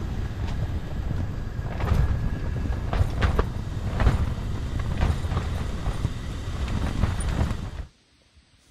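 Strong wind buffeting a tent, a heavy rumble with the fabric flapping and snapping in gusts. It cuts off suddenly near the end.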